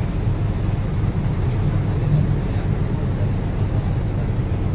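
Steady low rumble of a bus's engine and road noise, heard inside the cabin.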